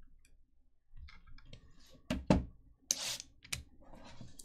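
A sealed cardboard trading-card hobby box being handled by hand: faint clicks, a sharp knock about two seconds in (the loudest sound), then a brief rustling scrape about three seconds in.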